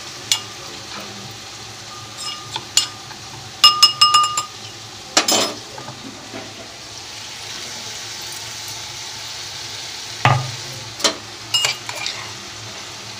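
A metal spoon stirring and scraping wet masala paste in a steel cup, with several sharp ringing clinks of spoon on steel, over the steady sizzle of onion and tomato frying in oil in a kadhai. There is a duller knock about ten seconds in.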